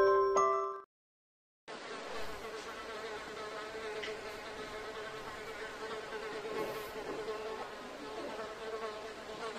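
A short chiming jingle rings out and cuts off about a second in. After a brief silence comes the steady, wavering buzz of a fly, a comedy sound effect.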